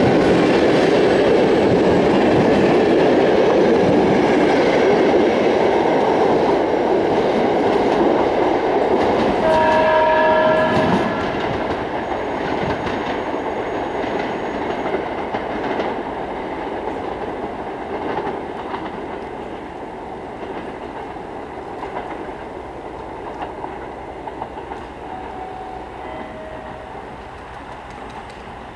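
Passenger coaches of a departing train rolling past on the rails, loud at first, then dropping about eleven seconds in and fading as the train draws away. About ten seconds in, a horn-like tone sounds once for about a second and a half.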